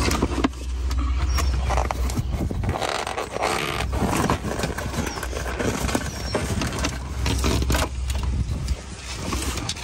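An old convertible soft top being handled and pulled, its fabric and plastic window rustling and scraping in short irregular strokes, over a steady low rumble.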